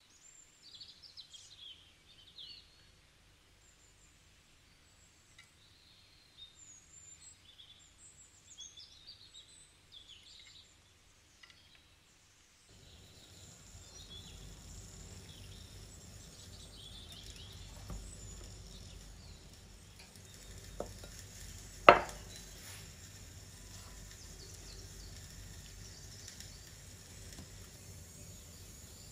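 Birds chirping and singing for the first dozen seconds or so. Then a steady low room hum comes in with the birds still faintly heard, a few light clicks, and one sharp knock about twenty-two seconds in.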